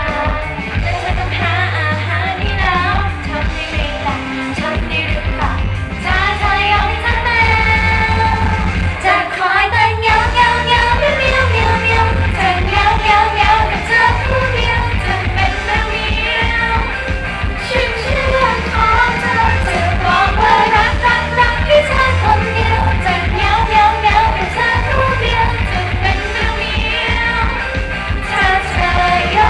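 Live idol-pop song: female voices singing into microphones over a loud backing track with a steady beat, played through a stage PA.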